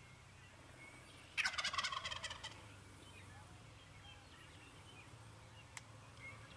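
A Merriam's wild turkey tom gobbling once, a rapid rattling gobble about a second in that lasts about a second. A single faint click comes near the end.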